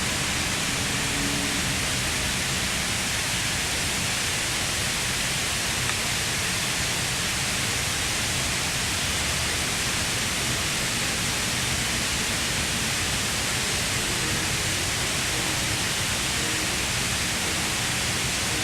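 A large outdoor water wall, 30 feet tall and 50 feet wide, with water cascading down it in a steady, even rush.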